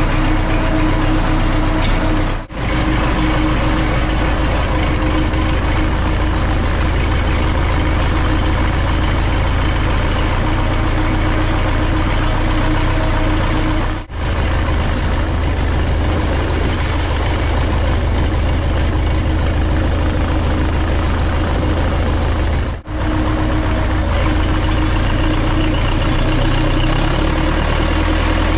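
Belarus MTZ 820.1 tractor's four-cylinder diesel engine running steadily, heard from the driver's seat. The sound dips briefly three times where the recording is cut.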